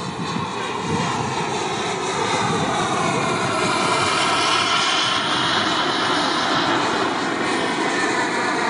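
Radio-controlled model F-86 Sabre jet flying past, a steady rushing jet noise that grows louder as the plane comes closer.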